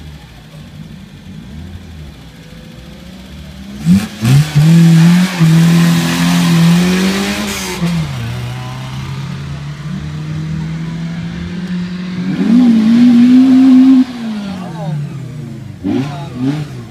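Peugeot 106 rally hatchback launching from a hill-climb start line: short sharp revs about four seconds in, then the engine pulls hard with rising pitch, shifts up around eight seconds in and runs on at lower revs. It pulls hard again with rising revs around twelve seconds in, then eases off; short revving blips follow near the end.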